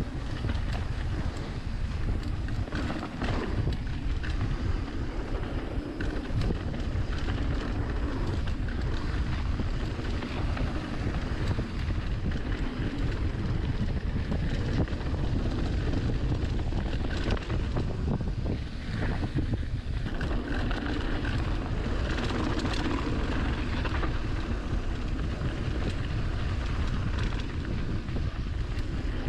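Wind buffeting a rider-mounted camera's microphone and the rumble of a mountain bike rolling down a dirt trail, a continuous low rumble with uneven rattly flutter.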